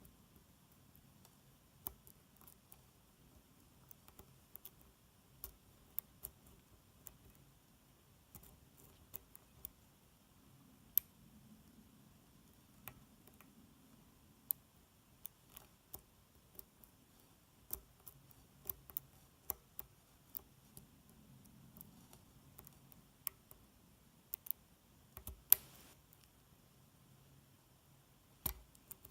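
Faint, irregular clicks of a lock pick and tension wrench working the pins of a small five-pin DOM pin-tumbler cylinder, the subtle clicks of pins setting at the shear line. The loudest click comes near the end.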